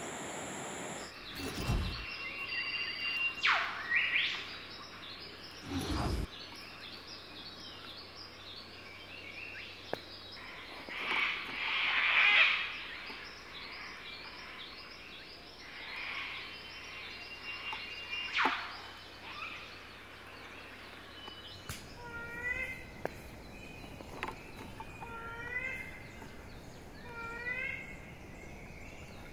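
Early-morning forest birdsong: many small birds chirping at once, with a few louder brushing or knocking sounds. In the last third one bird repeats a short curling note in quick runs every couple of seconds.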